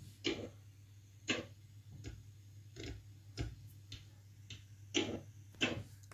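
Computer mouse clicking irregularly, about eight clicks in six seconds, over a low steady hum.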